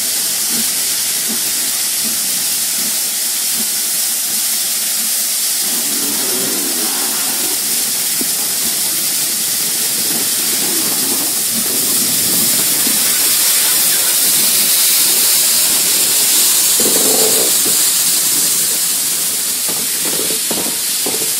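BR Standard Class 9F 2-10-0 steam locomotive moving slowly past at close range, letting off a loud, steady hiss of steam that swells as the engine draws level. A few short clanks come near the end.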